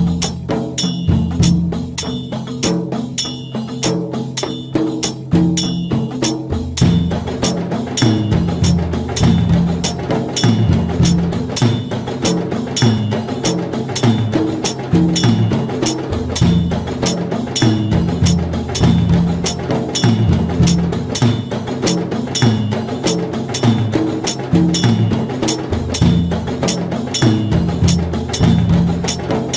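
Background music with a quick, steady percussive beat over a changing bass line.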